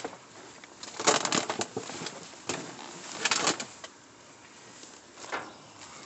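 Irregular bursts of rustling and scuffing as trash and clothing are handled right beside the phone's microphone while rummaging in a dumpster, about four separate bursts.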